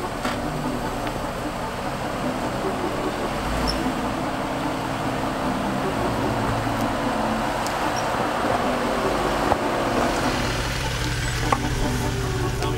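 Off-road vehicle engine running at low speed while crawling over trail rocks: first a Jeep Wrangler Rubicon, then from about ten seconds in a Ford Bronco with a deeper, stronger hum. A couple of sharp knocks come near the end.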